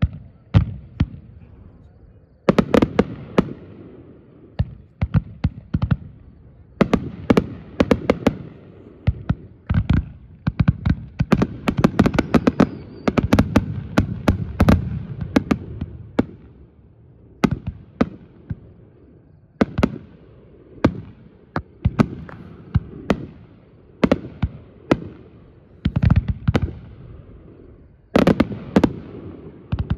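Aerial firework shells bursting, each a sharp bang followed by a low rumbling echo. The bangs come in dense overlapping volleys for the first half, then as single booms about a second apart.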